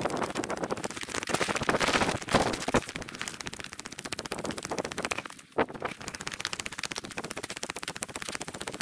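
Sped-up walking audio: a rapid clatter of footsteps with wind buffeting the microphone, breaking off briefly about five and a half seconds in.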